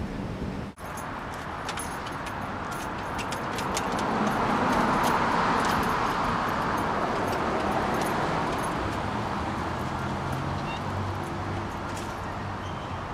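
Outdoor traffic noise as a car passes, swelling to a peak about five seconds in and then fading, with scattered light clicks.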